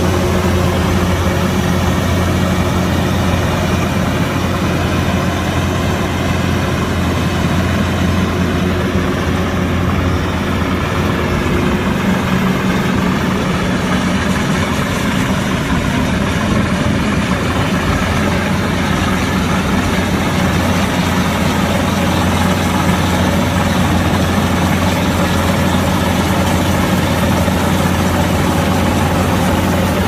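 Kubota combine harvester's engine running steadily, a constant low drone under a dense wash of machine noise.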